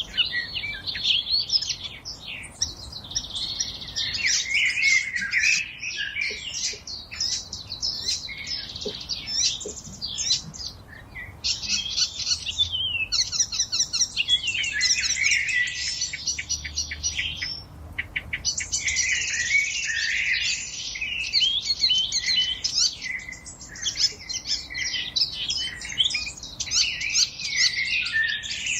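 Several songbirds singing at once in a forest, a dense chorus of chirps and quick trills that barely pauses.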